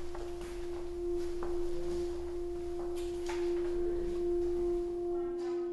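A steady, pure humming tone held at one pitch, with a fainter overtone an octave above: a sustained drone in the film's score.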